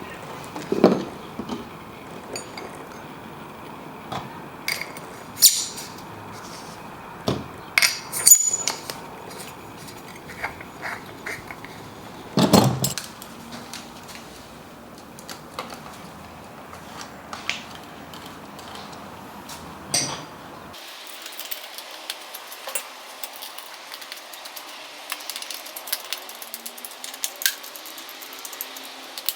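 Scattered metallic clinks, clicks and knocks of tools and bike parts being handled during a mountain bike build, with the loudest knock about twelve seconds in.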